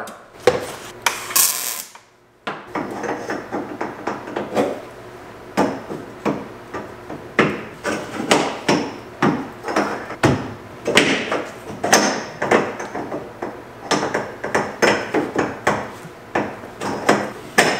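Hammer knocking on a steel roll-cage tube, a long run of sharp metal-on-metal taps at roughly two or three a second, after a brief clatter near the start. The tube is being worked into place because it does not fit well.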